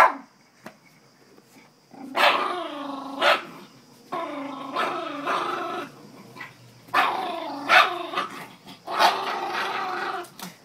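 Small terrier growling in four long, rising-and-falling spells, broken by a few sharp snapping barks, as she guards the pig ear she is chewing from a boy coming close.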